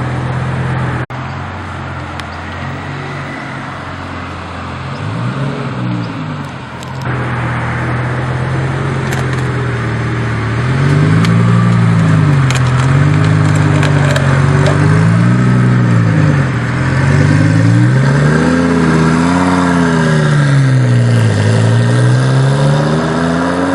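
Twin-turbocharged Lamborghini Gallardo V10 running at a steady low speed, then from about eleven seconds in revved up and let fall again and again, its pitch rising and dropping every couple of seconds.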